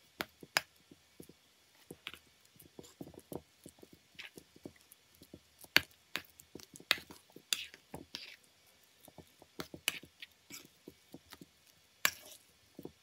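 Metal spoon stirring mashed potatoes and milk in a stainless steel bowl: irregular clinks and scrapes of the spoon against the bowl, with soft sounds of the mash being worked between them.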